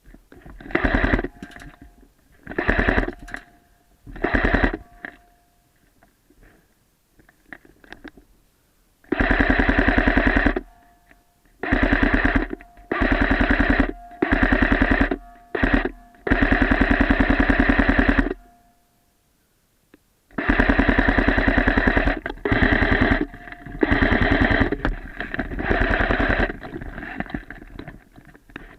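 Airsoft guns firing on full auto in repeated bursts of rapid shots. The first bursts are short, then come longer bursts of one to two seconds each, with a brief gap of near silence about two-thirds of the way in.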